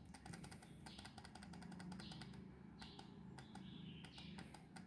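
Faint, quick clicking of the small plastic push button on a digital programmable electrical timer, pressed over and over, about three presses a second, each press stepping the set minutes forward by one.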